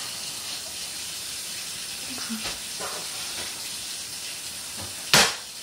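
A girl coughing and spluttering on a mouthful of dry ground cinnamon: a few small choked sounds, then one loud cough about five seconds in. A steady hiss lies underneath.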